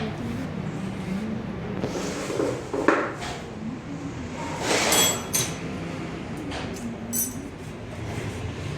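Small metal parts clinking and ringing against each other three times, loudest about halfway through, over a steady low hum.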